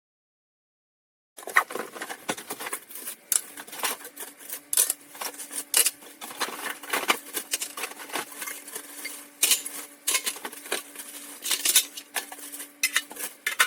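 Metal bakeware pans being handled, clattering and clinking in a run of irregular sharp knocks and taps, with a faint steady hum under most of it.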